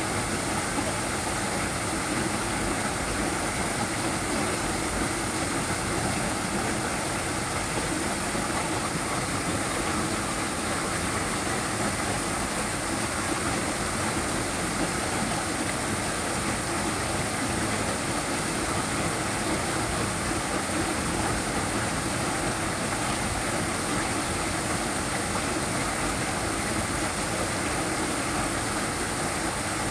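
Small waterfall: a steady, unbroken rush of falling water.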